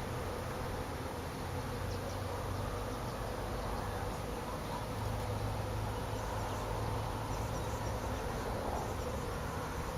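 Swarm of honeybees buzzing: a steady, dense hum of many bees.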